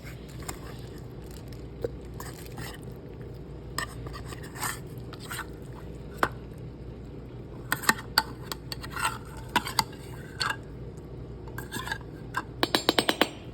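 Metal utensil clinking and scraping against dishes in scattered short strokes, with a quick run of about eight clinks near the end, over a steady low hum.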